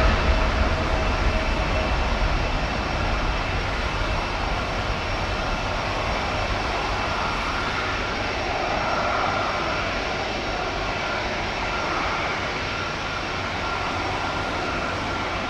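Boeing 747-400's four Rolls-Royce RB211 turbofans at low taxi thrust: a steady roar with a faint high whine. It fades slightly over the first few seconds, then holds.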